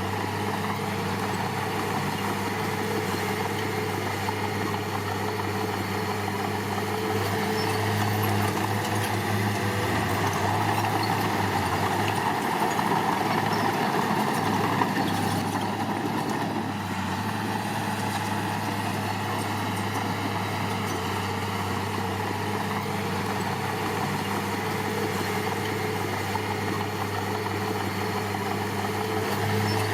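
Diesel engine of heavy construction machinery running steadily, growing a little louder for several seconds midway.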